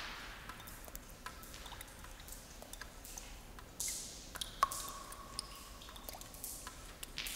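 Scattered drips and sharp clicks over swells of high hiss that come and go every couple of seconds, with a short ringing tone a little past halfway.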